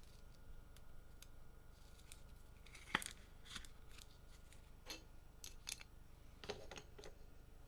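Faint handling of a trading-card pack being opened and its cards handled: scattered light clicks and rustles, with a sharper click about three seconds in and a small cluster near the end.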